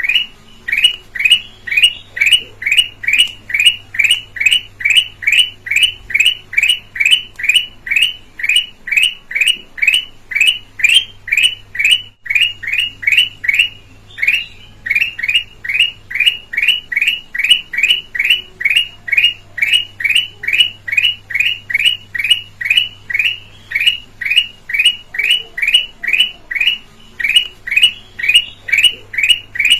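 Kutilang emas (red-eyed golden bulbul) calling in a fast, unbroken series of short, clear downslurred notes, about two to three a second, with one brief pause partway through.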